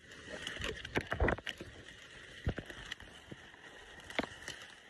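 Footsteps of someone walking through tall grass and brush, with the rustle of stems brushing past and irregular crunches and knocks, the loudest about a second in and about four seconds in.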